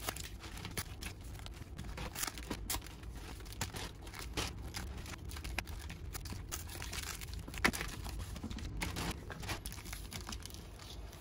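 Foil Pokémon booster pack wrappers crinkling and rustling as the packs are slid out of their cardboard sleeves and dropped and stacked on a table, with scattered light taps and clicks.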